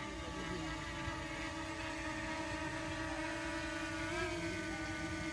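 DJI Mini 2 quadcopter's propellers whining steadily as it hovers and descends a few metres overhead, with a brief rise in pitch about four seconds in.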